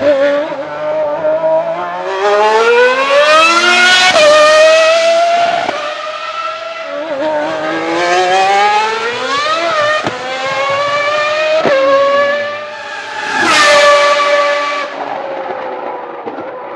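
A Ferrari V12 Formula One engine at full throttle, climbing through the gears: its pitch rises in sweeps, dropping back at each upshift, then holds high and loud before fading as the car pulls away.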